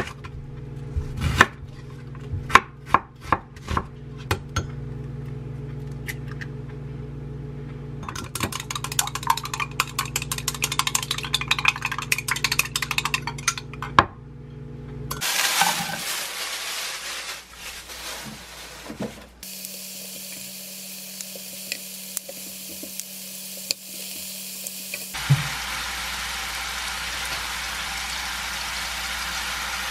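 Kitchen knife slicing an onion on a wooden cutting board, a handful of sharp chops in the first few seconds over a steady low hum. Then eggs are beaten fast in a glass cup, a dense run of quick clicks. Near the end, thin slices of pork neck sizzle in a non-stick frying pan with a steady hiss.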